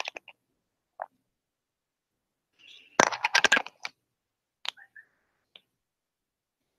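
Scattered sharp clicks and knocks, with a dense clatter of clicks lasting under a second about three seconds in, then a few single clicks.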